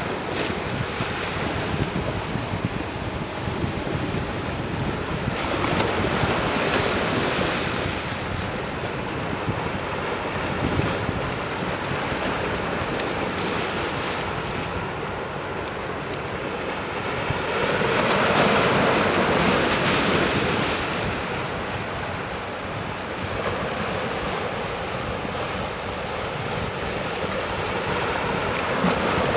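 Wind buffeting the microphone over a steady wash of water, swelling in gusts about six seconds in and again more strongly about eighteen seconds in.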